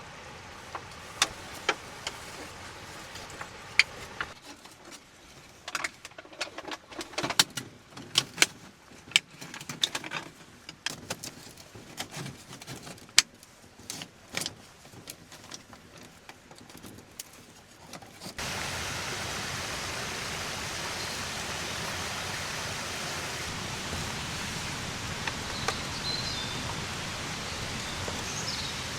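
A run of sharp clicks and knocks over a quiet background. Then, after an abrupt cut about two-thirds of the way through, a steady rushing water noise, with a couple of faint bird chirps near the end.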